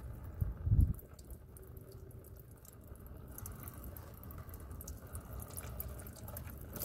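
Used engine oil trickling in thin streams from the open drain hole of a PT Cruiser's oil pan into a drain pan, draining after an engine flush. Two short low wind buffets hit the microphone within the first second.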